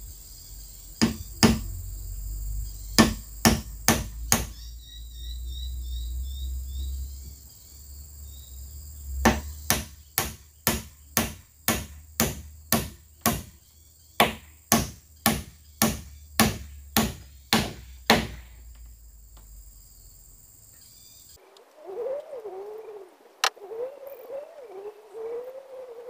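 Repeated hard striking blows. A few spaced strikes come first, then a steady run of about one and a half blows a second for around nine seconds. About 21 seconds in, the sound cuts to a wavering, pitched animal call.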